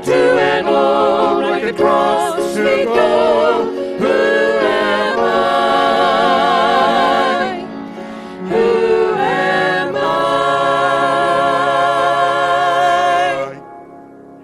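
A vocal trio, two men and a woman, singing the closing phrases of a gospel song in harmony with piano accompaniment. It ends on one long held final chord that stops about a second before the end.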